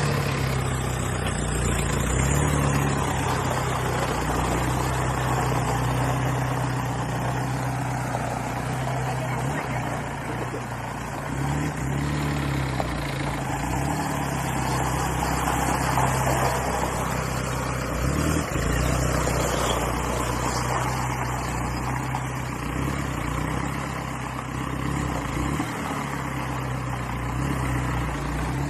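Monster truck's engine idling steadily, its pitch drifting slightly up and down.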